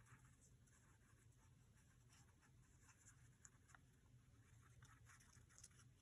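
Faint scratching and light rustling of paper being handled and worked on a craft table, a few small ticks scattered through, over a low steady hum.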